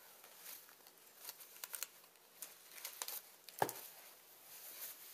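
Faint paper and cardboard rustling and crinkling, with small scattered clicks as a metal shedding blade is wiped clean of soap by hand. One sharper knock a little past halfway.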